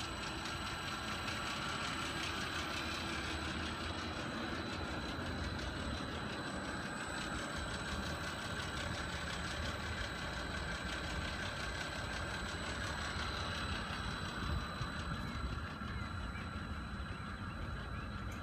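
The AXI HC-150 fuel polishing system's pump running steadily at low speed, about 12 Hz on its variable frequency controller, circulating diesel at about 30 gallons a minute while the system primes. A steady hum with a thin, steady high whine over it.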